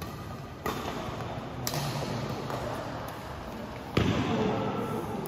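Badminton rally: sharp racket hits on a shuttlecock, three in all, about a second apart early on and one louder near the end, each followed by a noisy swell from the hall, the loudest after the last hit.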